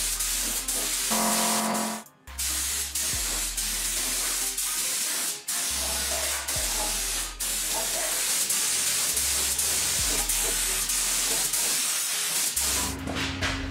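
Compressed-air spray gun hissing in long bursts with brief breaks, over background music with a low bass line.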